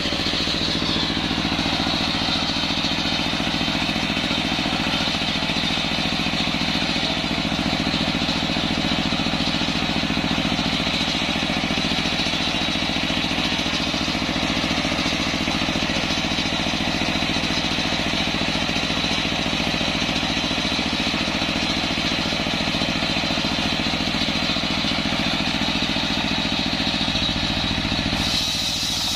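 Stationary diesel engine running steadily, driving a circular sawmill blade that spins freely without cutting.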